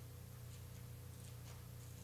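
Quiet room tone under a steady low hum, with a few faint soft ticks.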